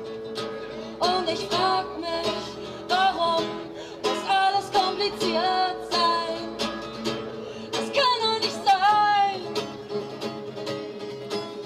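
A woman singing a song to her own strummed acoustic guitar, her voice gliding between held notes over a steady strum.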